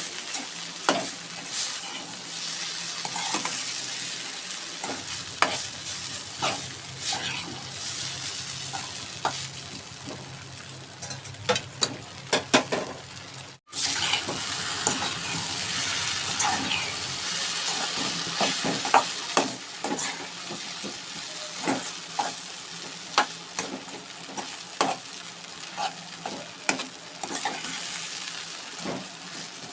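Egg masala noodles sizzling in a pan over a low flame while a spatula stirs them, with frequent clicks and scrapes of the spatula against the pan. The sound cuts out for a moment about halfway through.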